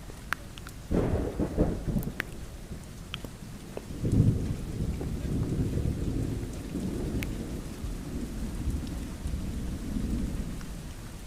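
Thunderstorm: steady rain with scattered drop ticks, and rolling thunder that swells about a second in and again, louder, about four seconds in.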